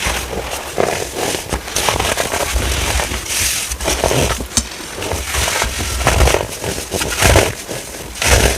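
Baking soda being crushed, a dense run of crackling crunches that swell and fade irregularly, with dull low thuds.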